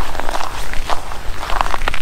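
Footsteps on snow-covered lake ice: a few irregular crunching steps over a steady low rumble.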